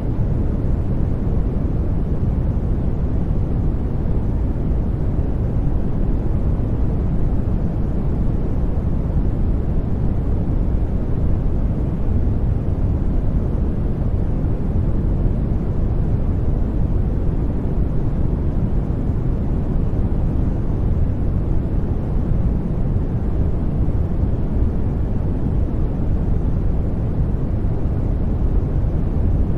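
Steady, unchanging generated noise, deep in tone, with most of its energy in the bass and only a little hiss up top.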